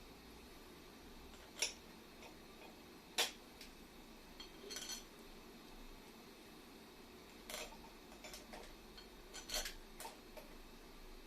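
Scattered metallic clinks and clicks, a few seconds apart, as tools and small metal parts are handled.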